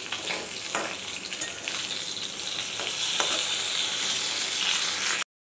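Rohu fish steaks sizzling as they shallow-fry in hot oil in a karahi, with a metal spatula scraping and tapping the pan as the pieces are turned and lifted. The sizzle grows louder about three seconds in and cuts off abruptly near the end.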